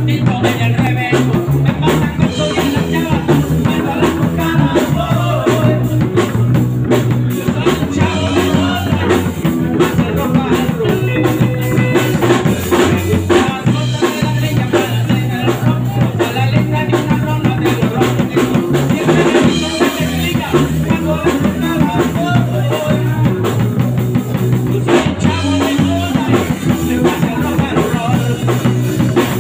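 A live rock band playing: electric bass holding steady low notes under a drum kit with a driving beat, electric guitar and a singer's vocals.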